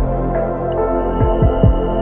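Background ambient music: soft held synth tones with a few low, falling bass thumps in the second half.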